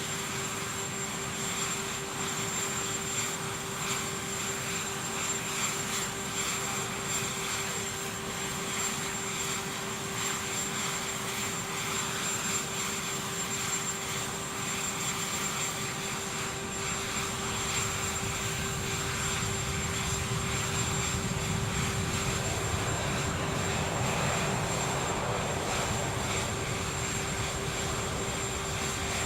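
Aircraft engines running steadily with a constant whine over a broad roar; the low rumble grows louder about two-thirds of the way through.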